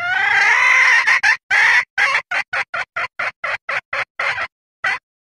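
Junglefowl hen calling, the mating call used as a lure to draw in cocks. One long call rising in pitch is followed by a run of short clucks, about four a second, which stops about five seconds in.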